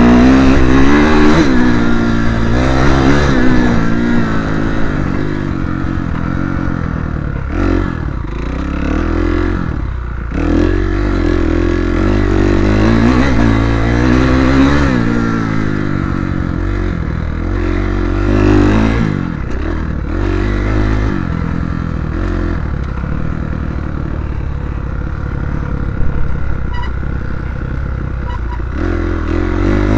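Kawasaki KX250F motocross bike's single-cylinder four-stroke engine heard from on board, revving up and dropping back again and again as the rider opens and rolls off the throttle. It runs steadier from about twenty seconds in.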